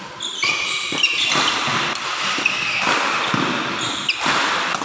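Badminton doubles rally: rackets striking the shuttlecock in sharp strokes and players' shoes squeaking in short high-pitched chirps on the court floor.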